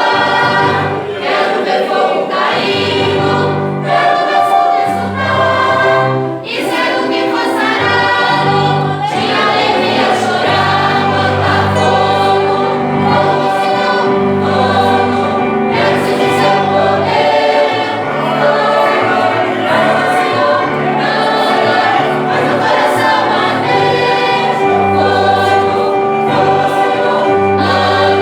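Choir singing a Christian worship song in Portuguese, with sustained low bass notes underneath.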